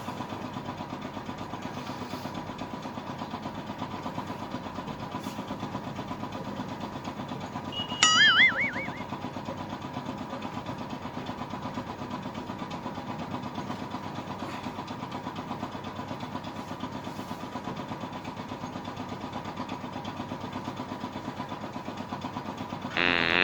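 Steady hum of a running room machine throughout. About eight seconds in comes a brief, high-pitched, wavering whistle-like sound, and a louder wavering sound begins right at the end.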